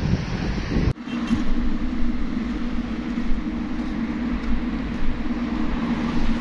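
A moving road vehicle's engine and road rumble, a steady hum that begins after an abrupt cut about a second in; wind-like noise comes before the cut.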